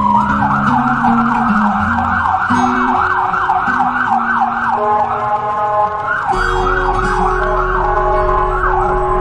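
Emergency-vehicle siren in a fast yelp, sweeping up and down in pitch about three times a second, over background music.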